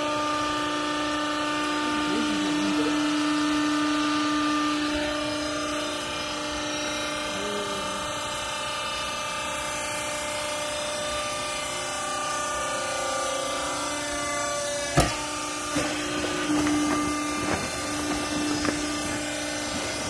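Vertical hydraulic clothes baler running, its hydraulic pump and motor giving a steady hum. A sharp clank comes about three-quarters of the way through, followed by a few lighter knocks.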